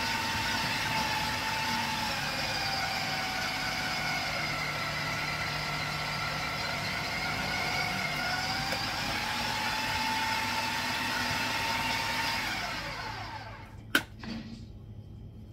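Electric grater machine running steadily, its motor whine dipping in pitch as squash is pressed down against the grating blade. Near the end the motor winds down and stops, followed by a single sharp knock.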